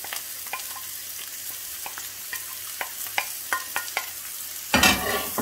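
Chopped onion, green onion and grated carrot sizzling as they hit hot oil in a frying pan. A wooden spatula scrapes them off a plastic cutting board with scattered sharp clicks and scrapes, and there is a louder rush near the end.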